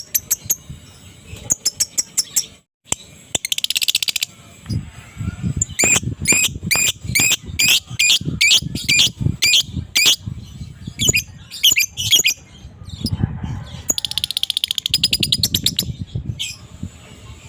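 Lovebird calling: shrill, sharp chirps repeated in quick succession, with a rapid chattering trill (the 'ngekek') about three seconds in and another near the end. A low rumble pulses underneath through the middle.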